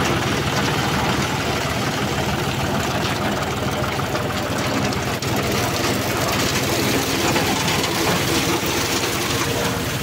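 Tractor engine running steadily at constant speed, driving a transit mixer drum as it discharges concrete down its chute.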